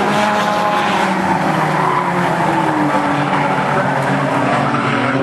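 Engines of several bomber-class stock cars racing around an oval in a dense, steady drone. Their notes slide up and down in pitch as the cars accelerate and lift through the turns.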